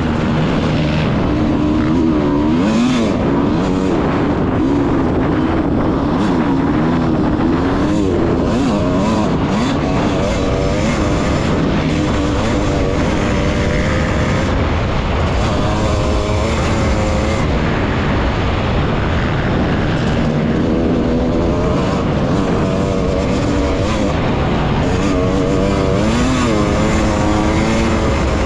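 Off-road racing engines revving up and easing off over and over, their pitch rising and falling every second or so over a steady rumble.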